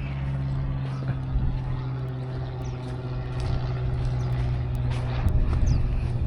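Propeller airplane droning steadily overhead, a low even hum that breaks up and fades about five seconds in.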